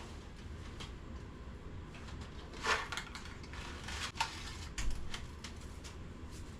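A few light knocks and rustles of kitchen items being handled, about three seconds in and again around four to five seconds in, over a low steady hum.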